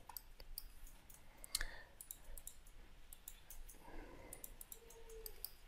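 Faint clicking of a computer mouse and keyboard, a scattered run of short sharp clicks that comes thicker in the second half.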